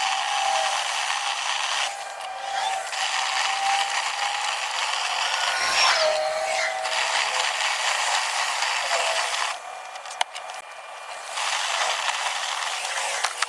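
Dryer vent cleaning brush spinning and rattling inside the duct, with the motor driving it whining steadily. The whine dips in pitch about six seconds in, and the noise drops back for a second or so near ten seconds.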